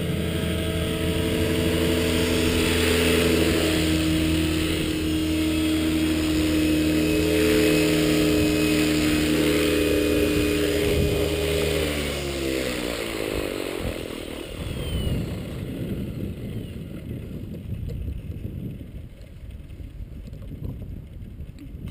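Align T-Rex 550E electric RC helicopter running with a steady whine from its motor, gears and main rotor as it hovers down onto its pad. A little past halfway the power is cut and the rotor spools down, the whine falling in pitch over about two seconds, then only a faint low rustle of the coasting blades remains.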